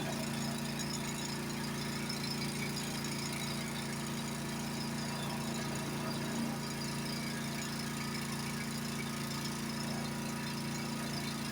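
Honda HSS928 snowblower's single-cylinder engine running steadily with no change in speed.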